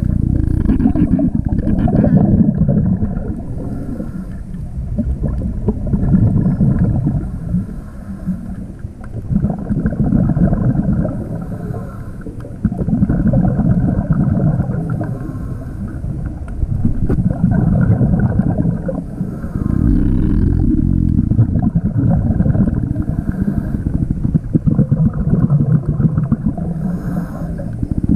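Scuba regulator breathing heard underwater: rumbling bursts of exhaled bubbles about every three to four seconds, with quieter stretches between breaths.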